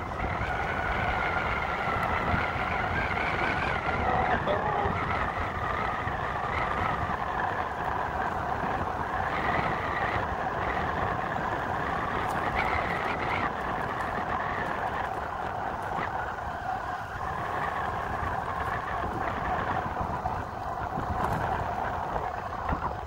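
Riding a bicycle along a paved path: wind rumbles steadily on the microphone and a continuous whine runs underneath.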